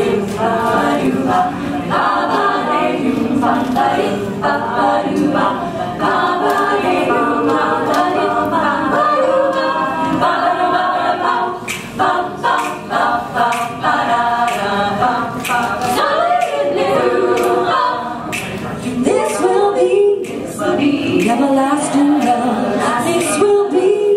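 Women's a cappella group singing in close harmony, several voices together with no instruments. Sharp clicks join in about halfway through and again near the end.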